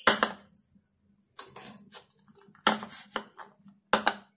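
A spoon knocking and scraping against a plastic serving bowl of chickpea chaat, in about four short clatters with pauses between.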